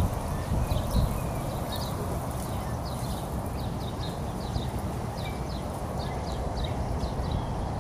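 Small birds chirping: many short high chirps, several a second, over a steady background noise, with a few low thumps in the first second.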